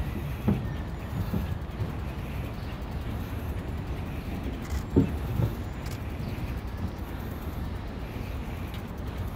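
Bicycle rolling over a wooden plank boardwalk: a steady low rumble from the tyres on the boards, with a few short knocks, the loudest about five seconds in.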